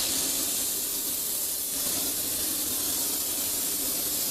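Oxy-acetylene torch with a rosebud heating tip, burning with a steady hiss.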